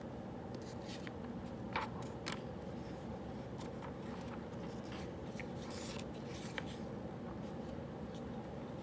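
Pen writing on paper while solving problems: irregular short scratches and small taps, one sharper tick about two seconds in and a longer scratchy stroke past the middle, over a steady low room hum.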